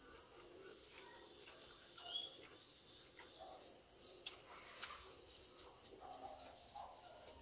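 Near silence: a steady faint high-pitched hiss with a few soft clicks and small rustles of people eating rice with their hands.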